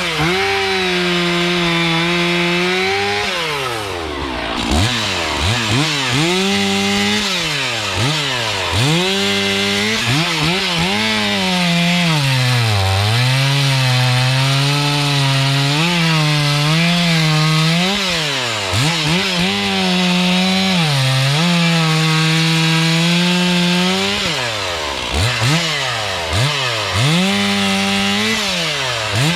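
Stihl MS 461 two-stroke chainsaw cutting firewood logs at high revs, its pitch sagging as the chain bites. Between cuts the throttle is let off and squeezed again several times, so the engine drops toward idle and revs back up.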